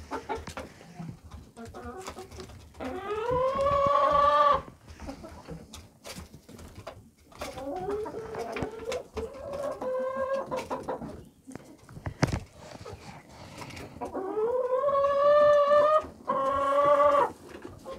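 A flock of Red Shaver laying hens clucking and calling, with several long drawn-out calls that rise at the start and then hold steady, and shorter calls in between.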